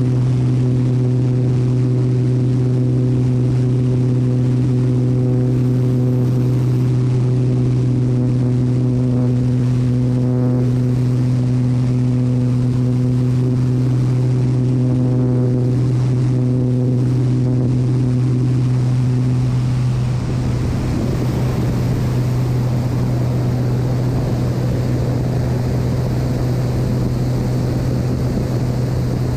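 Single-engine agricultural airplane's engine and propeller droning steadily in low, fast level flight. About 20 s in, the even hum gives way to a rougher rushing noise with a slight drop in level as the plane slows and banks into a turn.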